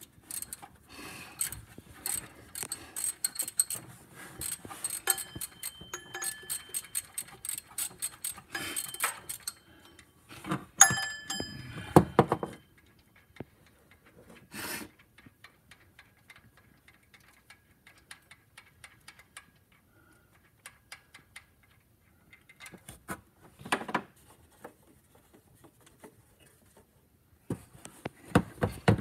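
Socket ratchet clicking in rapid runs as the alternator's 10 mm mounting bolts are backed out, with a ringing metal clink about eleven seconds in. After that only scattered faint clicks and knocks.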